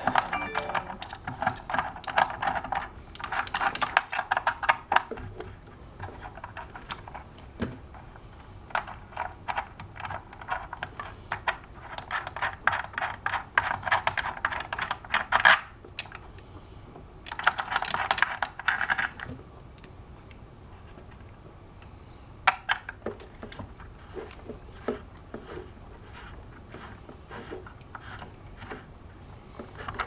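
Allen (hex) key working a screw loose in a hoverboard's metal frame, with small metal parts handled: bursts of rapid light clicking and rattling, thinning out to scattered single clicks in the last third.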